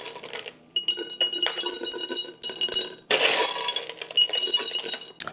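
LECA expanded-clay pebbles poured into a glass jar, rattling and clinking against the glass in two pours of about a second and a half each.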